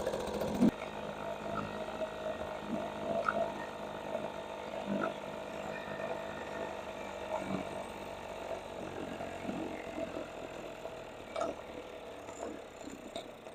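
Small two-stroke outboard motor idling steadily with its fuel shut off, so that it runs the carburetor dry, with a few light clicks and a thump about a second in.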